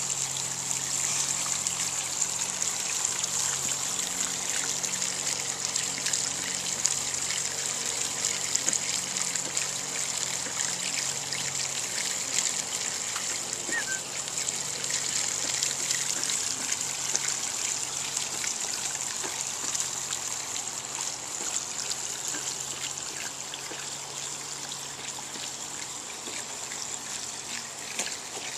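Water from a garden hose nozzle running steadily into a shallow plastic kiddie pool, trickling and splashing, as a Newfoundland puppy drinks from the jet.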